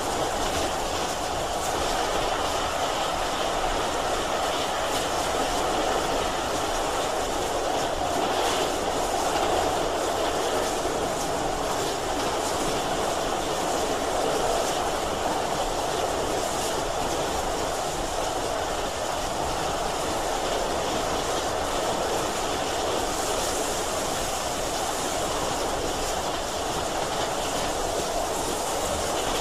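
A railway train running on the rails, a steady rolling noise with no break.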